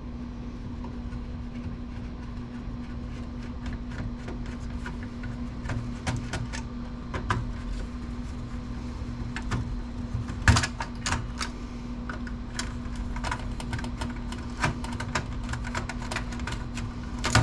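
Irregular clicks, taps and small metallic knocks of hand tools and parts being worked loose while a desktop computer is dismantled down to its processor. The loudest knock comes about ten seconds in. A steady hum runs underneath.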